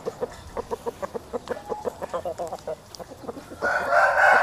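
Chickens clucking in quick short notes, about five a second. Near the end a rooster starts a long crow.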